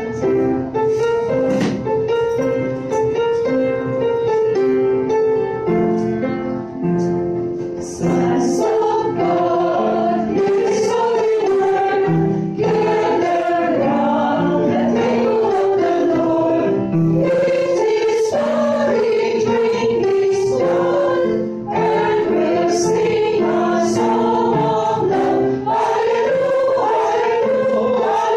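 A small choir singing a gospel song in rehearsal, with held notes; the singing grows fuller and louder about eight seconds in.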